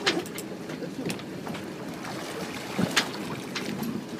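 Sea water sloshing against a catamaran's hull, with wind on the microphone. Two sharp hits stand out, one at the very start and one about three seconds in, with a few fainter ones between.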